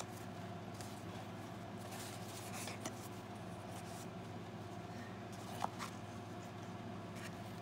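Faint rustling and scraping of a cardboard gift box and its paper cord as the cord is pulled off and the lid is slid open, with a few small ticks, the sharpest about five and a half seconds in. A steady low hum lies underneath.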